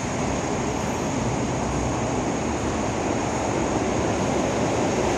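Steady rumble and hiss of a railway station platform's background noise, slowly growing a little louder.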